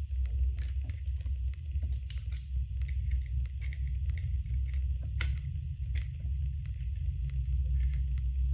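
Scattered small clicks and taps of a small screwdriver and tools on a phone as a tiny screw is worked out, over a steady low hum.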